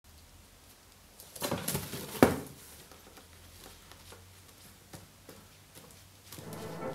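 A kitten scrabbling and landing with one sharp thump about two seconds in as it jumps up onto a wooden shelf, followed by a few faint ticks. Music starts near the end.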